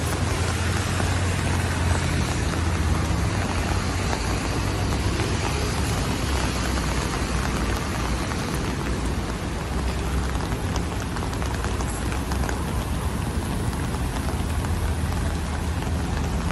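Steady rain falling, an even hiss with a low, steady rumble underneath.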